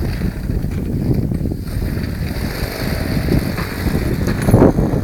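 Wind buffeting the microphone: a steady low rumble, with a stronger gust near the end.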